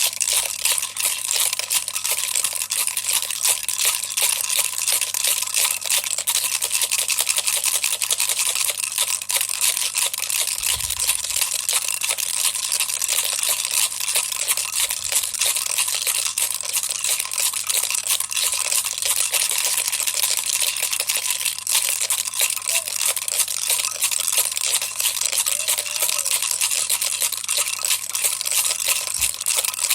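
Baby's toy rattle being shaken continuously: a dense, steady clatter of many small clicks without a break.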